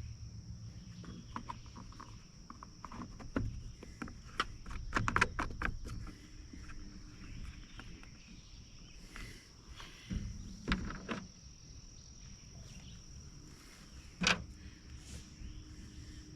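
Scattered clicks and knocks of small parts being handled and fitted while a string trimmer is reassembled, busiest about a third of the way in, with one sharp knock near the end. A faint steady high-pitched tone runs underneath.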